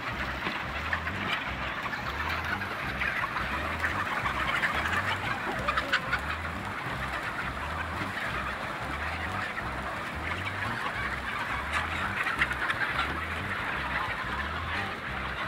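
A large flock of chickens clucking and squawking all at once as they run and scatter, a dense, continuous clamour of many birds.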